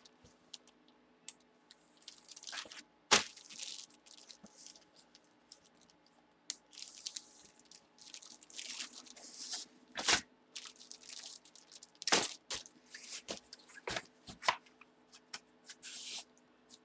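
Trading cards and their plastic holders being handled: irregular rustling and sliding with sharp clicks, the loudest about 3, 10 and 12 seconds in.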